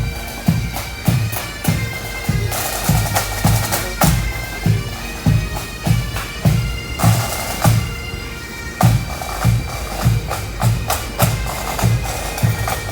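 Pipe band playing a march: Highland bagpipes sounding over their steady drones, with a bass drum keeping an even beat of about two strokes a second and snare drums rattling between the beats.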